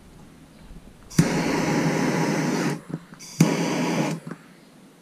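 Handheld Bernzomatic gas torch lit twice: a hiss of flame about a second and a half long, then a shorter one of just under a second. Each starts with a sharp pop and cuts off abruptly.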